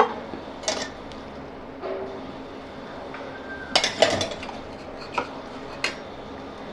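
Kitchen utensils clinking and knocking a handful of times, with a quick cluster about four seconds in, as melted ghee is put onto rolled paratha dough.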